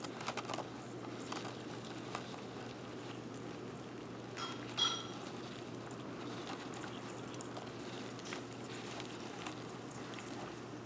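Faint scattered scratches and clicks as a baby blue-tongue skink goes after a cockroach in a bucket, over steady room noise with a low hum; the sharpest clicks come just after the start and about five seconds in.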